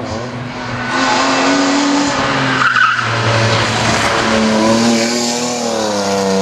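Rally car engine revving hard, its pitch climbing and dropping as it shifts gear and lifts off and back on the throttle, with tyres skidding. A short sharp burst comes just before the middle.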